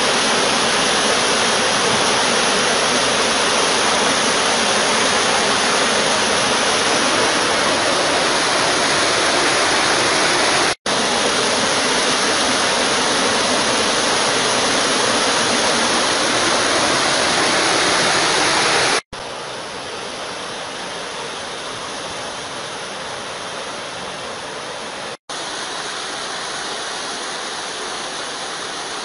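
Fast-flowing flash floodwater rushing steadily, a dense even rush with no pauses in the flow. It cuts out briefly three times and is quieter after the second break, about two-thirds of the way through.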